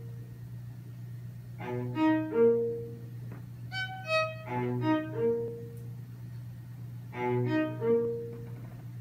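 String quartet of two violins, viola and cello playing live in short repeated phrases, each ending on a held note, with brief pauses between them.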